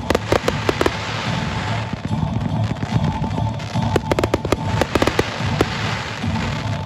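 Fireworks display: rapid sharp cracks and pops from bursting shells and ground fountains, in two clusters, one near the start and one around four to five seconds in, over a steady hiss.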